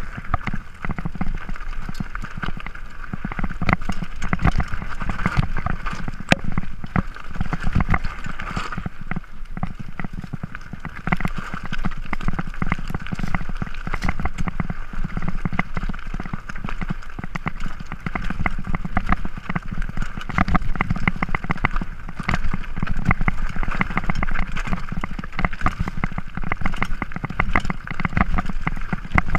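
Mountain bike riding down a rocky singletrack: a constant clatter and rattle of the tyres hitting stones and the bike's parts jolting over the rough ground.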